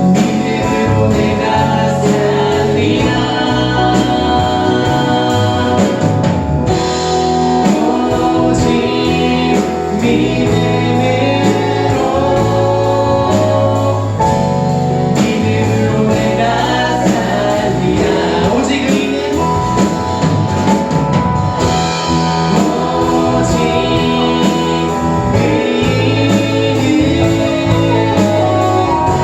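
Live worship music from a church praise team: voices singing over steady instrumental band accompaniment.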